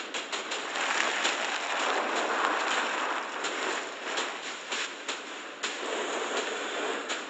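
Ford Ranger Raptor pickup's tyres sliding and spraying loose dirt and gravel: a steady rushing hiss with scattered clicks of flung stones.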